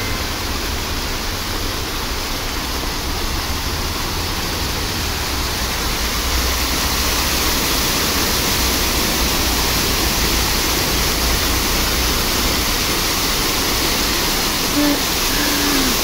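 A row of dancing-fountain water jets shooting up and splashing back down into the basin: a steady rush of falling water that gets a little louder about six seconds in, as the jets rise higher.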